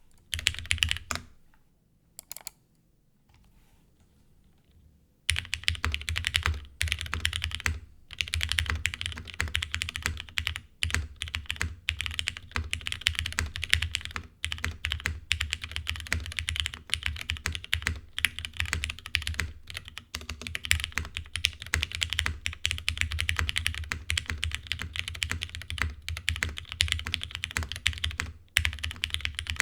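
Typing on a custom mechanical keyboard: lubed, filmed linear Cherry MX Black switches on a half FR4 plate with GMK keycaps, in an aluminium Jane v2 clone case. A few separate key presses and a pause, then steady fast typing from about five seconds in.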